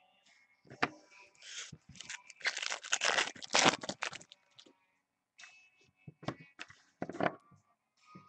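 Trading cards and their plastic and foil packaging being handled by hand: a stretch of tearing and crinkling from about 1.5 to 4 seconds in, with a few sharp clicks of card stock before and after it.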